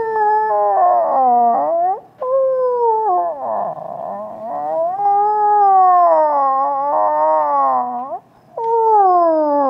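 A man imitating a cow moose in heat by voice through cupped hands: long, wavering, nasal wails that slide down in pitch, broken by short pauses about two and eight seconds in.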